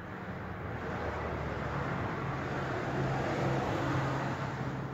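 A motor vehicle passing by: a rush of noise with a low hum that swells toward the middle and eases off near the end.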